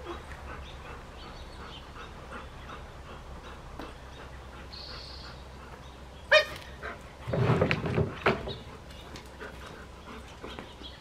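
A young Rottweiler gives a short, sharp, high bark about six seconds in, then a louder, rough burst of sound lasting about a second.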